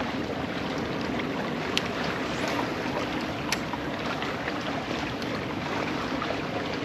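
Steady rush of water and wind around a fishing kayak, with a couple of sharp clicks about two and three and a half seconds in.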